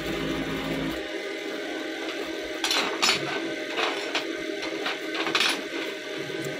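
Steady hum of a TIG welding arc for about the first second, cutting off abruptly. Then steel knife blanks clink several times as they are handled and set down on the workbench.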